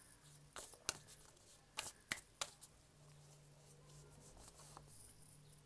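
A deck of tarot cards handled in the hands as a card is drawn: a few short, sharp card flicks and taps in the first half, then faint rustling.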